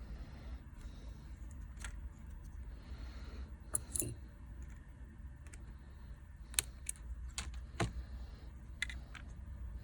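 Several light, scattered clicks and taps of small repair tools against the internal parts of a smartphone being taken apart, over a low steady hum.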